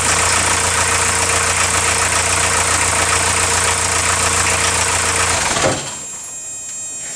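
1977 Volkswagen Rabbit (Mk1) diesel engine idling steadily, fully warmed up with the thermostat open, then shut off about five and a half seconds in.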